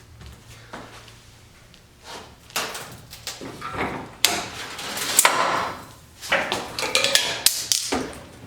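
Steel tool-cabinet drawers being fitted back onto their new slides: a run of metal knocks, clanks and sliding rattles, starting about two seconds in.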